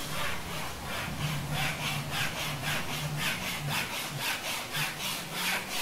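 Embryotomy wire being sawn back and forth through a goat's horn, a rapid rasping at about four strokes a second.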